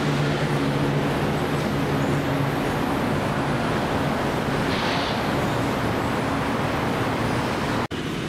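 BTS Gold Line Bombardier Innovia APM 300 rubber-tyred people mover train at the platform: a low steady hum from its electric equipment over constant noise, the hum fading over the first few seconds.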